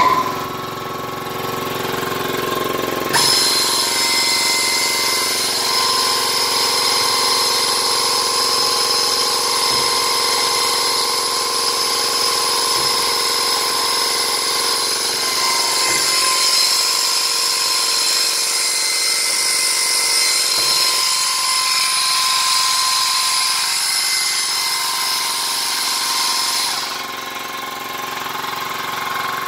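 Vitap Alfa 27T multi-spindle boring machine running: its 27-spindle drilling head gives a steady, loud hum with a high whine added from about three seconds in, and a few light knocks. The whine stops a couple of seconds before the end, leaving the lower hum.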